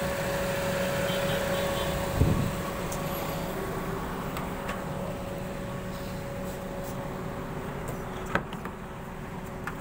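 Car engine idling steadily, with a single thump about two seconds in and a sharp click near the end.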